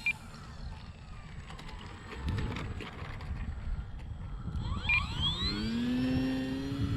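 Durafly Tundra RC plane's electric motor and propeller throttling up for takeoff about five seconds in: a whine that rises quickly in pitch, then holds steady. Gusty wind rumbles on the microphone throughout.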